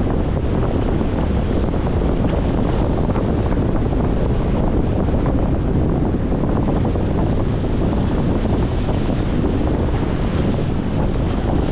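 Strong wind buffeting the microphone in a steady low rumble, with choppy waves splashing against a concrete seawall.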